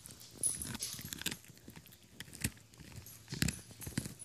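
A small dog gnawing a knotted rawhide bone: irregular crunching and clicking of teeth on the rawhide, with a few sharper crunches about a second apart.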